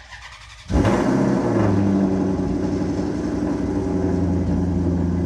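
An engine comes on abruptly about a second in, shifts briefly in pitch, then runs at a steady low hum.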